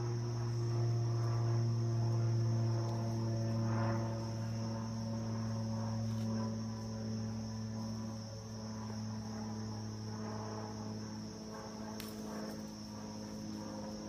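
Crickets or katydids chirring steadily in a high, unbroken band, over a louder steady low hum that eases off in the second half. One sharp click near the end.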